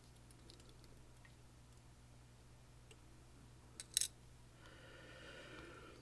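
Faint metallic clicks and taps of small lock pins and tools being handled while a Clavis F22 lock is taken apart, with a sharper double click about four seconds in.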